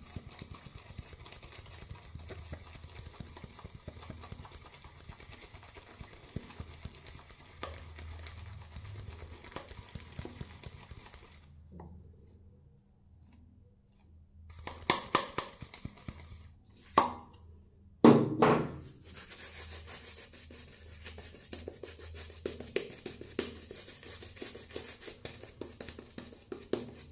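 Shaving brush working Vitos coconut shaving soap: faint scratchy swishing with small ticks, a short pause, then a few sharp knocks and clatters of handling a little past halfway, the loudest about two thirds through. Near the end the brush scrubs lather onto a stubbly face and neck.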